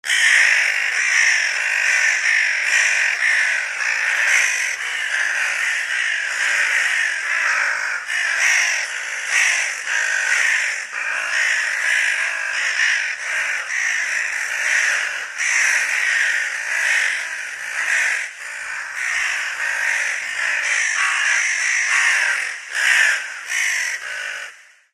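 A group of crows cawing constantly, their harsh calls overlapping with no break, until the sound cuts off suddenly near the end.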